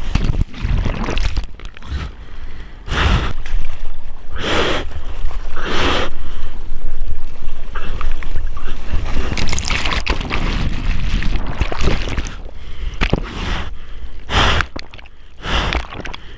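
Ocean water sloshing and splashing against a waterproof action camera at the surface of the surf, with a constant low rumble from water moving over the housing. Heavy gasping breaths come about every second and a half in the first half, and a longer stretch of rushing whitewater follows about nine seconds in.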